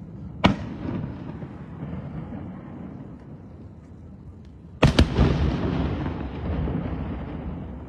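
Aerial firework shells bursting: one sharp bang about half a second in, then a louder double bang about five seconds in, each followed by a long rumbling echo that dies away slowly.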